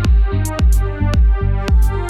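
Background music with a heavy bass beat, a little under two beats a second, and sharp percussion over it.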